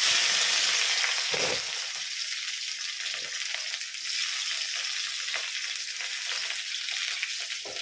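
Chopped onion dropped into hot oil in an aluminium kadhai, sizzling loudly at once and then settling into a steady frying sizzle with small crackles. A soft knock about a second and a half in.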